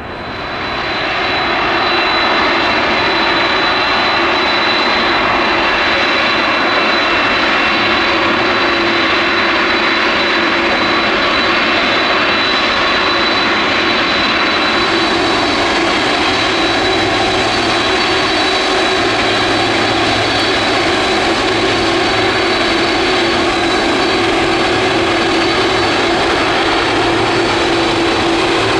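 Boeing 747-400F freighter taking off, its four jet engines running at take-off power: a loud, steady noise with a high whine on top, building over the first couple of seconds and growing brighter about halfway through.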